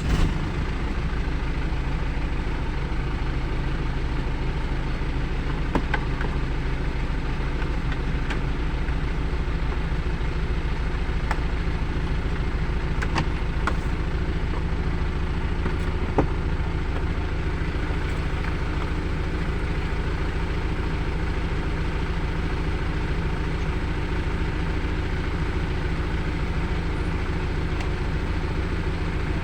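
Car engine starting and settling straight into a steady idle, with a few faint ticks over it.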